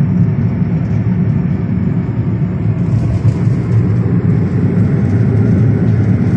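Steady road and engine noise inside a moving Renault car's cabin at highway speed: a low, even drone with tyre hiss, the hiss growing a little stronger about three seconds in.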